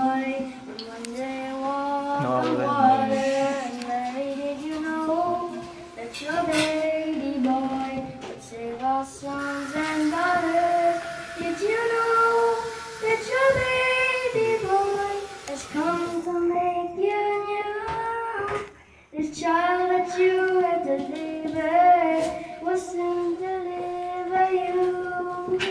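A child singing karaoke into a corded handheld microphone, with long held notes and a brief pause between phrases about three-quarters of the way through.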